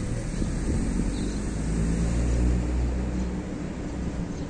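Low engine hum of a motor vehicle, growing louder toward the middle and easing off near the end.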